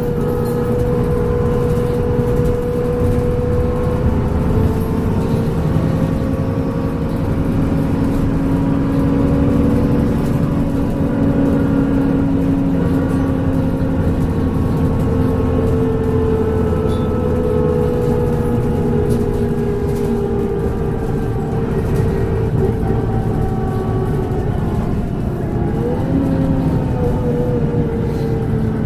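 Transbus Trident double-decker bus with a Voith gearbox running under way: a steady engine rumble under a clear turbo whistle. The whistle drifts slowly in pitch and rises briefly near the end.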